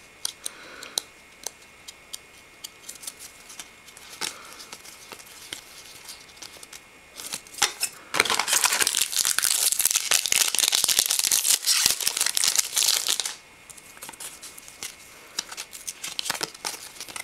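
A trading-card pack wrapper being torn open and crinkled, loud and continuous for about five seconds in the middle. Before and after, light clicks and rustles of glossy cards being handled and fanned apart.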